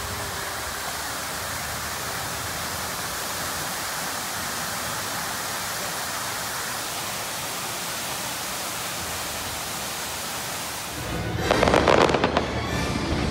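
Steady hiss of a fountain's water jets spraying and splashing. About eleven seconds in it gives way to fireworks, much louder, with bangs and crackling.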